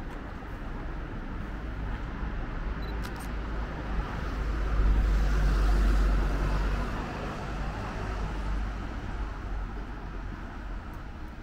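A road vehicle driving past on the street, its engine and tyre noise swelling to a peak about halfway through and then fading away.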